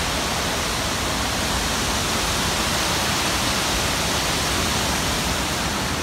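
Steady rushing of Bridal Veil Falls, a waterfall on the Lady Evelyn River.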